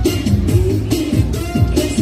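Upbeat pop dance music with a steady beat of about two strokes a second, in a passage with no clear singing.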